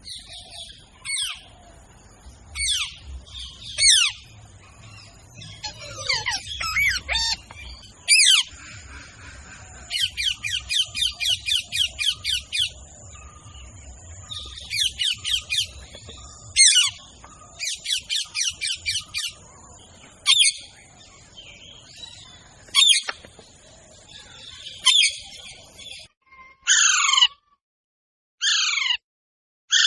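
Small birds chirping and squawking in many short falling calls, some in quick runs of chirps. Near the end come a few separate, louder falling screeches.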